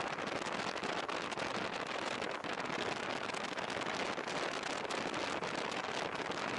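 Heavy rain and riding wind on a moving motorcycle's action-camera microphone: a dense, steady hiss shot through with constant crackling as raindrops strike the camera housing.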